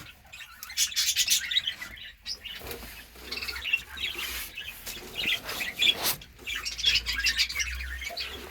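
Budgerigars chirping and chattering in many short high calls, with a few sharp clicks, the loudest about six seconds in.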